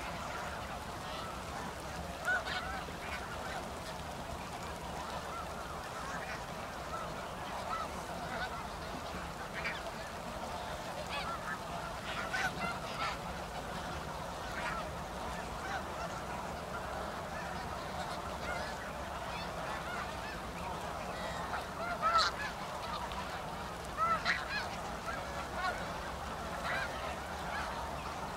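A large flock of snow geese calling continuously: a dense chorus of overlapping honks, with a few louder, nearer calls standing out now and then.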